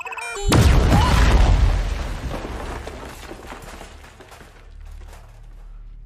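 A bomb's electronic beeping, then about half a second in a loud explosion with a deep rumble that fades over a couple of seconds into scattered crackling and clattering debris.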